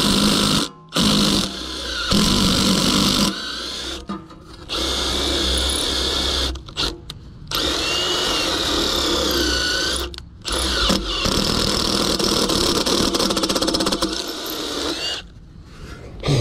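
Milwaukee cordless drill boring into the hub of a seized condenser fan blade, to break the blade free of the motor shaft. It runs in several bursts with brief pauses, its whine wavering in pitch.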